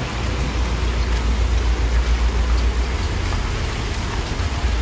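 Heavy rain falling on a wet street: a steady, even hiss, with a deep low rumble underneath.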